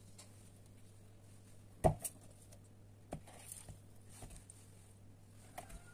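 Vegetables being handled and set down in a bowl: a dull thump just under two seconds in, then a few lighter knocks, over a faint steady hum.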